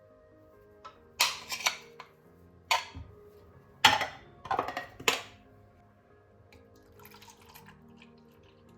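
Soft background music with about six sharp kitchen clatters and taps in the first half, then quieter faint handling noise.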